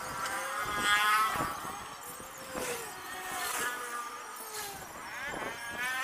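Motor vehicle engines passing on the street, their pitch bending up and down, loudest about a second in and again near the end.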